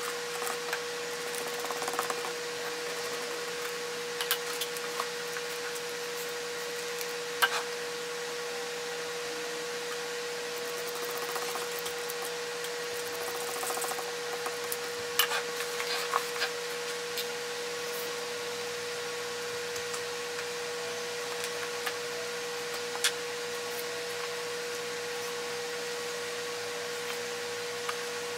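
Leather and lining being handled and worked by hand on a wooden workbench: scattered light taps, clicks and rubs over a steady hiss with a constant hum.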